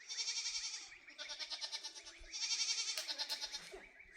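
Goats bleating: three long, high bleats, each with a rapid quaver.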